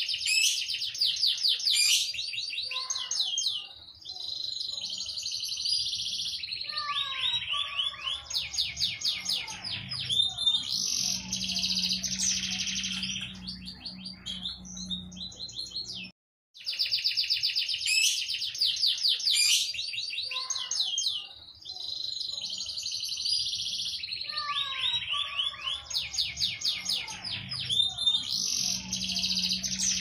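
Domestic canary singing a long, continuous song of fast trills and rapid repeated rattling phrases. The song breaks off briefly about sixteen seconds in, then starts again.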